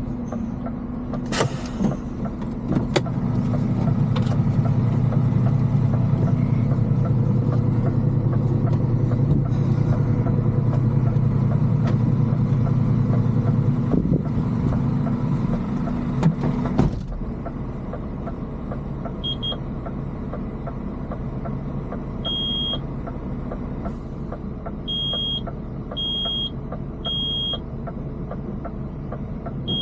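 Heavy diesel engine running hard under load, then dropping to a quieter idle a little past halfway. Several short high beeps sound at uneven intervals after the drop.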